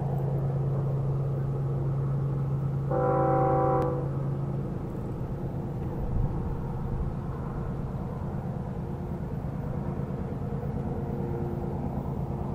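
CSX freight train's diesel locomotive: a steady low engine drone, with one blast of about a second from its multi-note air horn about three seconds in.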